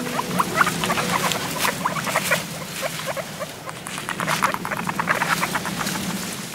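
Rapid high squeaks and chirps from a cute small-animal sound effect, several a second, over a low held tone of soft background music.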